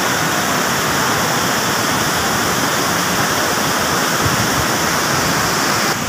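Large waterfall, with water cascading over rocks in a steady, loud rush.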